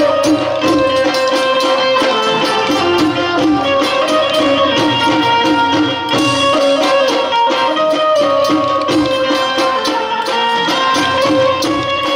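Dandiya raas folk music with drums keeping a steady beat under held melody lines.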